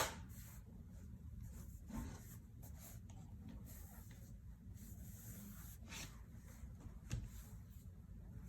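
Hard plastic shell case being handled and fitted onto a MacBook Pro: faint rubbing and scraping of plastic against the laptop, with a sharp click at the start and a few softer knocks later.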